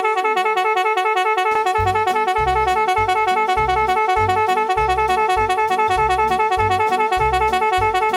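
A very loud electric horn, sold as a 170 dB horn, blaring continuously as one steady high tone that wavers in a quick regular ripple. About a second and a half in, a low rhythmic thumping joins it.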